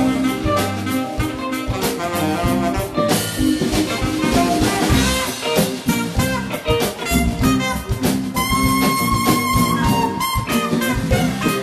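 Live smooth-jazz band playing: alto saxophone lead over drum kit and electric bass, with the saxophone holding one long note from about eight to ten seconds in.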